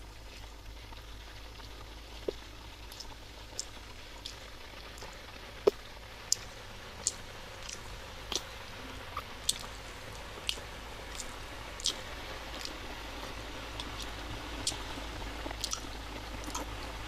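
Close-miked chewing of soft, thick red velvet martabak manis, with short, sharp wet mouth clicks about once a second.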